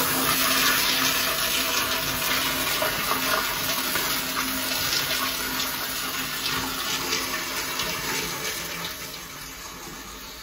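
Crane toilet flushing: a loud rush of water through the bowl that gradually tapers off as it drains and refills.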